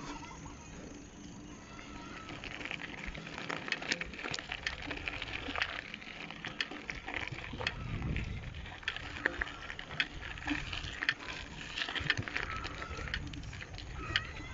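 Bicycle tyres crunching and crackling over loose gravel and rough tarmac as it rolls along, with a dense run of small irregular clicks and low rumbles of wind on the microphone at times.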